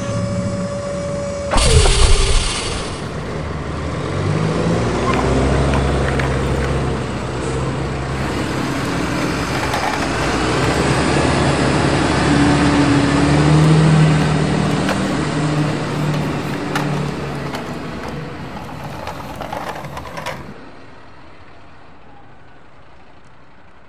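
A horn sounds one steady note for about two seconds, followed by a loud burst of air hiss. A bus engine then rumbles and revs up as it pulls away, running for about eighteen seconds before it cuts off abruptly near the end.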